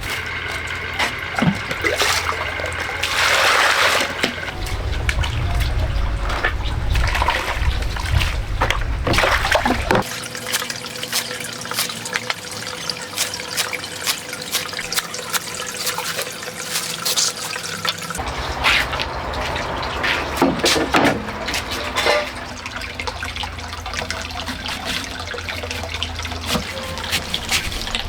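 Water splashing and trickling, with scattered knocks and clicks of things being handled in it.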